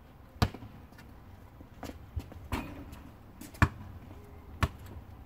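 A basketball bouncing on an asphalt driveway: single sharp thumps about once a second, the first the loudest.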